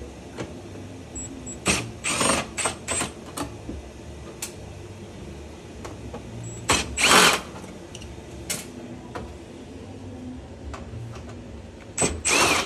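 Cordless drill-driver backing out screws in short trigger bursts, each with a motor whine that rises and falls. The bursts come in three groups: about two seconds in, about seven seconds in, and near the end.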